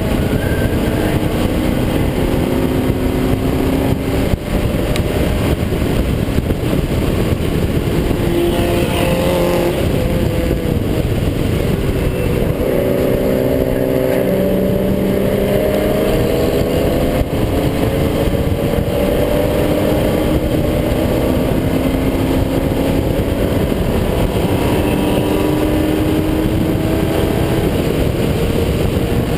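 Car engine at full racing effort on a track, its pitch climbing in long pulls through the gears and dropping at each shift or lift, under a thick steady rush of wind and road noise on the microphone.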